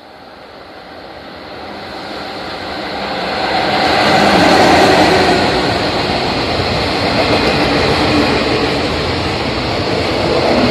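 EF66 electric locomotive hauling a container freight train through a station without stopping. The sound builds as it approaches, is loudest as the locomotive goes by about four seconds in, then settles into the steady noise of the container wagons rolling past on the rails.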